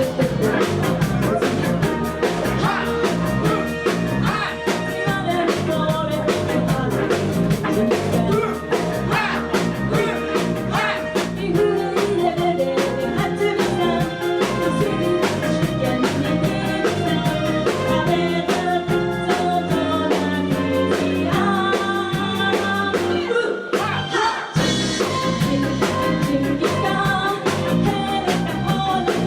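Live band with a drum kit playing an upbeat song, with singing over a driving beat. The band cuts out for a moment near the end, then comes straight back in.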